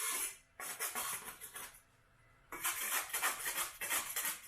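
Kitchen knife scraping and sawing at a hard surface in quick rasping strokes. It comes in two spells with a pause about two seconds in.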